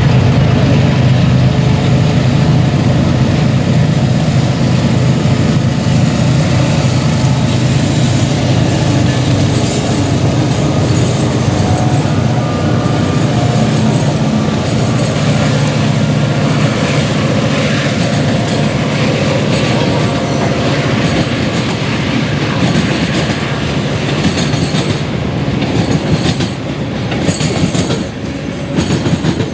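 CSX freight locomotives, GE ES44AH and AC44CW units and an EMD SD40-2 diesel, passing close by at full throttle (notch 8) with a heavy engine rumble that fades over the first half. Then covered hopper cars roll past with wheels clicking over the rail joints.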